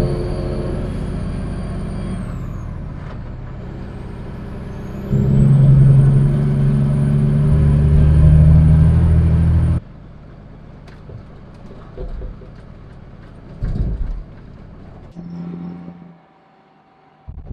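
Semi truck's diesel engine heard from inside the cab while driving, with a high whistle above it. The whistle fades about two seconds in and climbs back, and the engine gets louder from about five seconds in. About ten seconds in it cuts to quieter wind outdoors with a few faint thumps.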